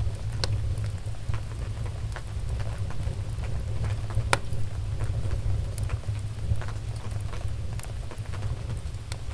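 Wood fire burning in a fireplace: scattered crackles and pops over a steady low rumble, with one sharp pop about four and a half seconds in.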